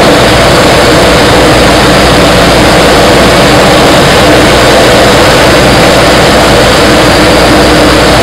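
Light single-engine propeller aircraft's piston engine and propeller running with a steady, loud drone, heard from inside the cockpit.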